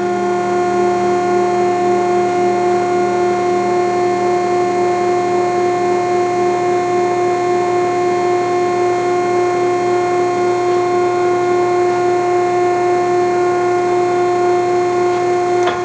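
Hydraulic pump of an American Eagle 1000-6 welding positioner running with a steady whine, driving the table's hydraulic rotation in reverse.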